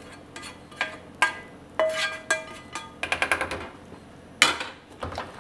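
A kitchen utensil scraping and knocking against a metal skillet and a stainless-steel stockpot, with ringing clangs, a quick run of taps about three seconds in and a loud knock a little over four seconds in.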